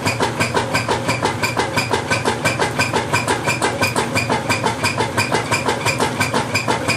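Whirlpool LSQ9200LQ0 top-load washing machine in its agitate cycle, making a loud, rapid, regular knocking, about four to five knocks a second, over a low motor hum.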